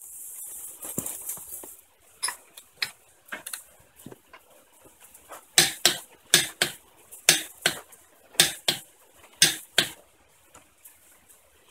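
Wrench tightening a car wheel's lug nuts: sharp metallic clicks, light at first, then loud and mostly in pairs about once a second from about halfway through. A short hiss comes at the very start.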